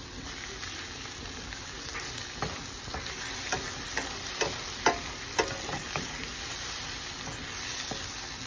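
Scrambled eggs and diced Spam sizzling in a stainless steel frying pan while a wooden spatula stirs them, knocking and scraping against the pan in short irregular clicks, most of them between about two and six seconds in.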